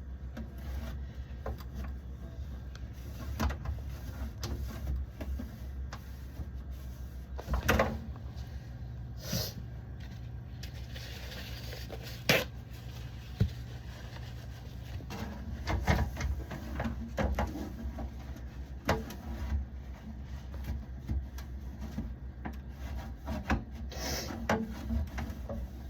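A refrigerator crisper drawer being wiped out where it sits: rubbing and wiping with scattered knocks and clicks of plastic, and a short hiss about eleven seconds in, over a steady low hum.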